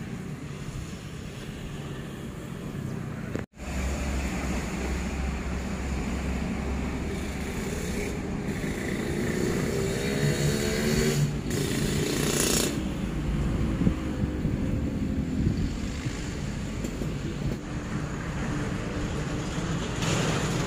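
Outdoor background noise with a low hum, broken by a brief dropout about three and a half seconds in. Around the middle, a road vehicle's engine is heard passing, its pitch rising and then falling away.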